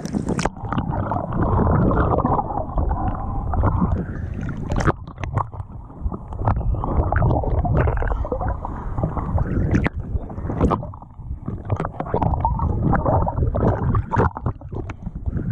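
Muffled underwater sound picked up by a camera held below the surface in shallow water: sloshing and gurgling from the swimmer's movements, with scattered clicks and knocks. The open-air sound cuts off just after the start as the camera goes under.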